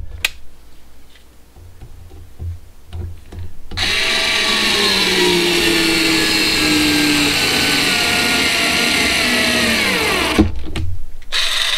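Bauer 4V cordless screwdriver's motor whirring for about six seconds as it drives a screw into a pressure-treated 2x4. The pitch sinks slowly as the screw bites deeper, then falls away as the motor stops. A few low handling knocks come before and after.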